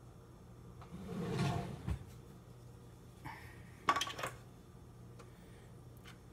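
Objects being handled: a rustling swell that ends in a thump about two seconds in, then a few clicks and a short clatter around four seconds, over a steady low hum.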